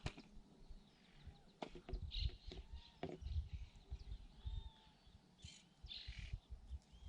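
Birds chirping: a scatter of short, arching calls, over irregular low thumps.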